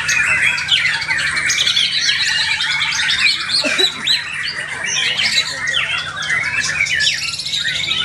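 White-rumped shama (murai batu) singing a long, unbroken run of loud, rapidly changing phrases: ringing shot-like notes, glides and chattering trills.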